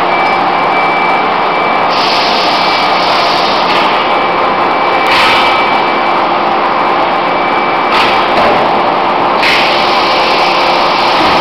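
Steady loud din of forging-shop machinery around a hydraulic die forging hammer, with a thin steady whine running through it. A few brief louder surges come about five, eight and nine and a half seconds in.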